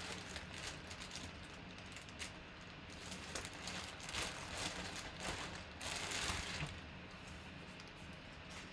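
Clear plastic bag crinkling and rustling as a jersey is pulled out of it, in a run of irregular bursts that are loudest in the middle.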